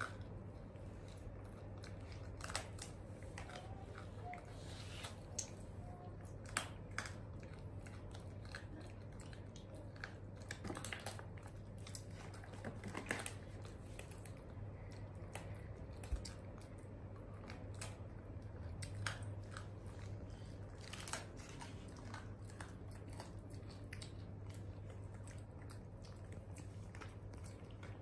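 A monkey chewing and biting dried banana: scattered small crunches and crackling clicks over a steady low hum.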